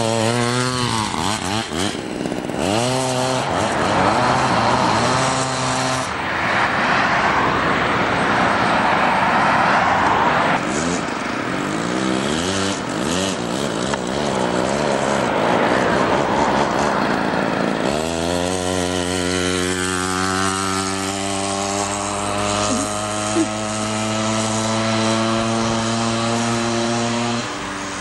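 Homelite 240 two-stroke chainsaw engine on a homemade motorized bicycle, revving up and down repeatedly, then running at a steady, slowly easing speed for the last third before dropping back near the end.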